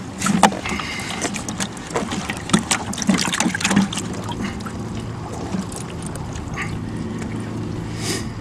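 A channel catfish being handled and unhooked by hand: a quick run of clicks and knocks with a brief squeak through the first half, then steady low background noise with a short hiss near the end.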